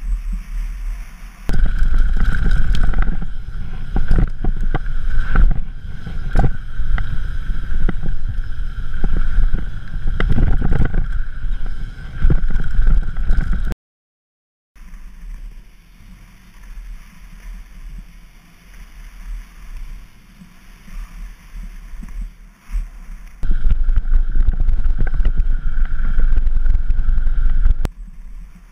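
A mountain bike running fast down a rough dirt trail, heard through a body-mounted action camera: wind buffeting the microphone over the rumble of tyres on dirt and rock, with frequent knocks and rattles from the bike and a steady high whir in the loudest stretches. The sound cuts out completely for about a second midway, then returns quieter.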